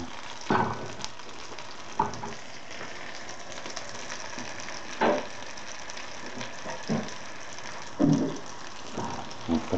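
Hake fish cutlets sizzling in oil in a frying pan: a steady hiss, broken by several short knocks, the loudest about eight seconds in.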